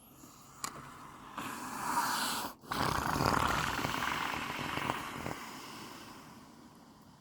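A horse snoring: one breath that builds for about two seconds and breaks off sharply, followed by a long, noisy breath that slowly fades.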